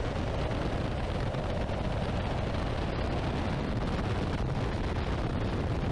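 A steady rushing rumble with no distinct events.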